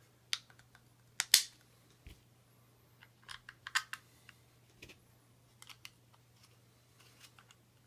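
Irregular light clicks and taps from handling the polymer clamshell halves of a Magpul AFG angled foregrip and fitting its small Allen screws. The loudest is a sharp double click a little over a second in, with a quick run of clicks around three to four seconds.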